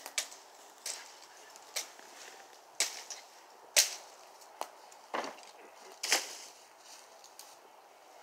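Machete chopping into brush and branches: about eight sharp strikes, roughly one a second, the hardest a little under four seconds in.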